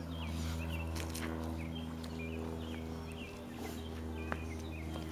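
Steady low electrical hum of a running machine, even and unchanging, with small high chirps repeating about twice a second over it.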